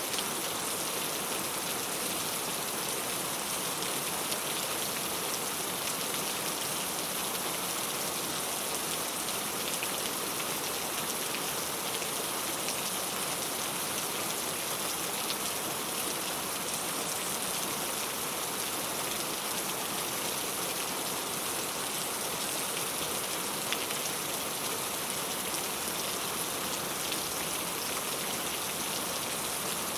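Steady rain falling on a clay tile roof, a dense, even patter of drops with no let-up or gusts.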